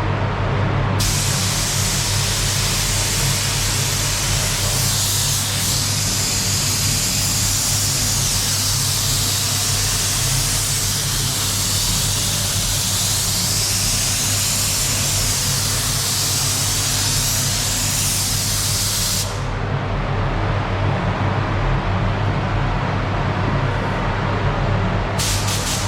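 Paint spray gun hissing steadily with compressed air while clear coat is sprayed on a van panel. It starts about a second in and cuts off sharply after about eighteen seconds, followed near the end by a few short bursts as the trigger is blipped. A steady low hum runs underneath.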